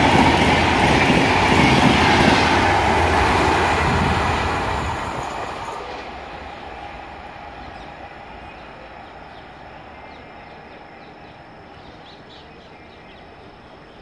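Tail of an express train of LHB coaches passing at about 130 km/h: a loud rushing rumble with wheels clattering on the rails. From about four seconds in it fades steadily as the train draws away.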